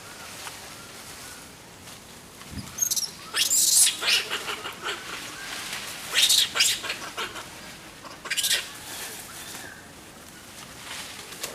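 Monkeys squealing and screeching in several harsh, high-pitched bursts: a cluster about three to four seconds in, another around six to seven seconds, and a shorter one about eight and a half seconds in.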